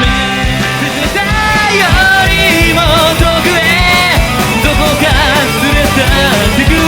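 Rock cover band playing live, a lead melody with vibrato over drums and bass.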